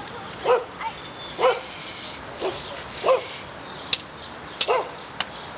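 A dog barking in short yips, about five times. A few sharp clicks fall in the second half.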